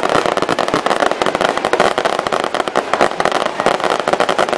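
Fireworks bursting overhead: a dense, unbroken run of rapid sharp crackling pops, many a second, from shells bursting into showers of sparks.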